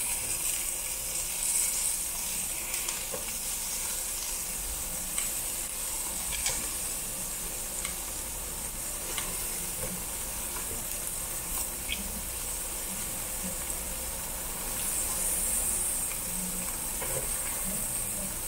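Pork belly (samgyeopsal) sizzling steadily in its own fat on a slotted grill plate over charcoal, with a few light clicks of metal tongs as the pieces are turned.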